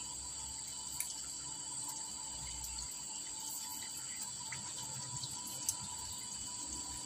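Steady background hiss with a faint high whine and low rumble, broken by two small clicks, one about a second in and one later on.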